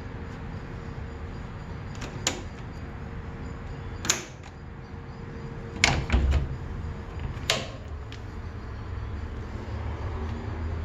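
A 1959 Constructa K7 washing machine being handled, giving about five sharp clicks and clunks spread over several seconds over a steady low hum.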